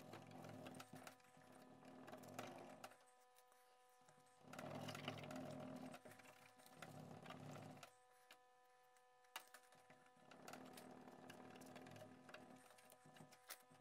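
Faint rubbing of a cloth back and forth over a steel cleaver blade as it is hand-polished, in three spells of strokes with short pauses between.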